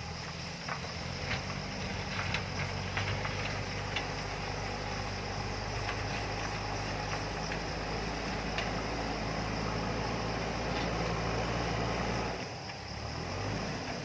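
JCB backhoe loader's diesel engine running steadily, with scattered sharp knocks and clanks in the first few seconds. The engine dips briefly near the end.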